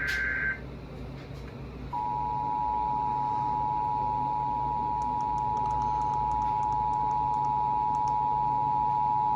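Emergency Alert System alert tones: the end of a SAME digital header burst, a buzzy data tone that cuts off about half a second in, then, after a short pause, the steady two-tone EAS attention signal that starts about two seconds in and holds, announcing a severe thunderstorm warning. Faint clicks are heard near the middle.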